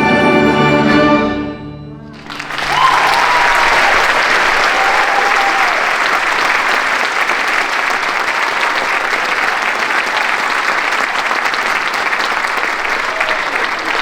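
A school symphony orchestra holds its final chord, which dies away about two seconds in. An audience then applauds steadily, with a couple of whoops early in the applause.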